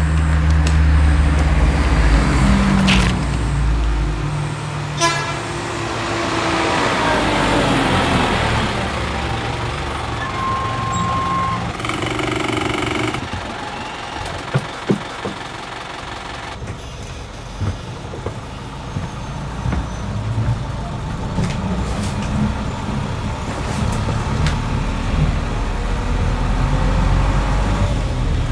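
A small city minibus pulling up and driving on: a rising hiss about six seconds in, a short horn toot around ten seconds in, then its engine running steadily with a few knocks and rattles from the cabin.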